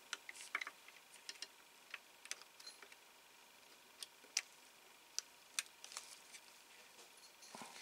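Faint, irregular plastic clicks and taps, about a dozen over eight seconds, as a side panel is pressed into place on a plastic Zastava 750 scale model.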